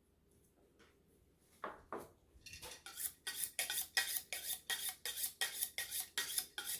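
A steel butcher's knife blade scraping in quick, regular strokes, about four a second. It starts with two single strokes, then settles into a steady rhythm.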